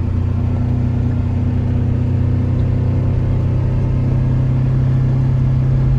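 Vehicle engine running steadily under way, its pitch creeping up slowly.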